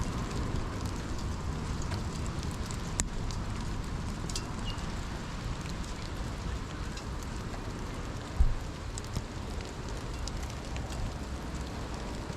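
Wind rumbling and buffeting on the microphone, with a dull thump about eight seconds in.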